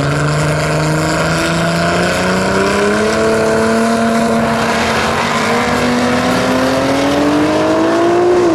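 Drag-racing vehicles launching off the start line at full throttle. The engine note jumps up sharply right at the start, then holds wide open, its pitch climbing steadily as they accelerate down the strip.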